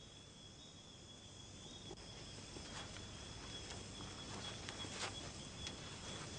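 Faint night ambience of crickets chirping steadily on a high, even pitch, with a few soft clicks.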